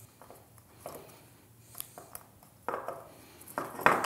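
Hands working on a camera holster and its padded back plate: small clicks and rubbing, then two louder knocks near the end, the second the loudest.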